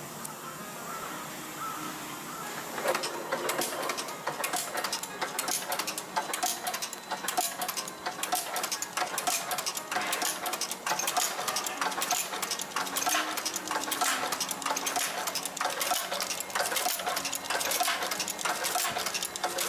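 Ota Kikai TK-6 twist-wrapping machine starting up about three seconds in and then running, with a fast, continuous mechanical clatter of rapid clicks.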